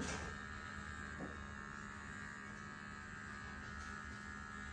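Electric hair trimmer running with a faint, steady buzz as it trims the short hair at the side of the head. A small tick comes about a second in.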